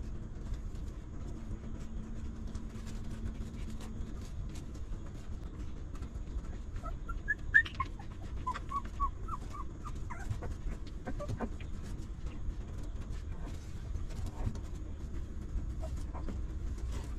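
Newborn puppies squeaking and whimpering while they nurse: a run of short, high squeaks in the middle, over a steady low rumble in the background.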